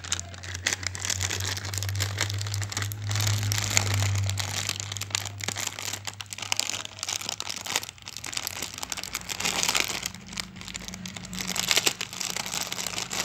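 Metallized plastic snack packet crinkling and crackling almost without pause as fingers twist and tear at its top corner to open it, over a steady low hum.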